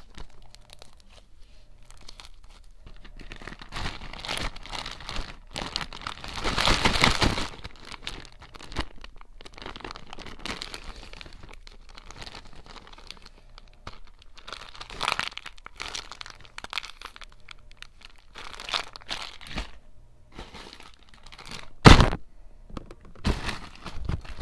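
Plastic slime bag crinkling and rustling as it is handled and opened, with a louder stretch of crinkling about a quarter of the way in and a sharp loud crackle near the end.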